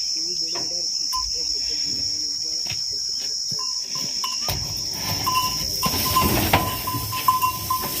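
Steady high-pitched chirring of crickets. About halfway through, rustling and scattered knocks join in, with dry fodder being tipped from a basket onto the cattle in the truck bed near the end.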